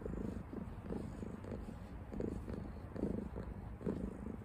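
Tabby cat purring close to the microphone: a low rumble that pulses in regular waves.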